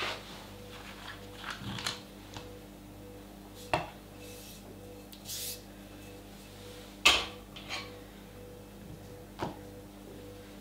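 Whetstones being swapped in a stone holder: a few hard knocks and clunks as the 1000-grit water stone is lifted out and a 5000-grit stone is set down in its place, the loudest about seven seconds in, with two short scrapes around the middle.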